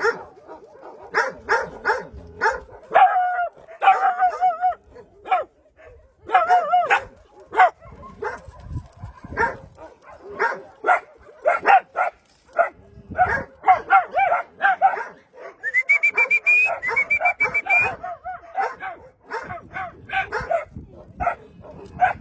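Several dogs barking and yipping in quick, high-pitched calls, mixed with whines; about two-thirds of the way in comes a longer, rising whine.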